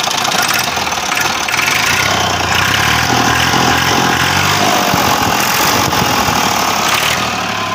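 Ursus 2812 tractor's diesel engine running steadily, in a sound the seller presents as a healthy engine.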